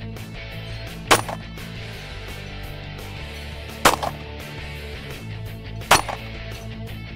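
Three pistol shots, two to three seconds apart, each followed a fraction of a second later by a smaller knock, over a steady low hum.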